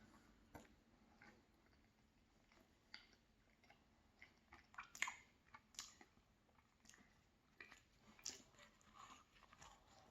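Faint close-up chewing of a soft, sticky frosted churro and dulce de leche cupcake, with scattered wet mouth clicks.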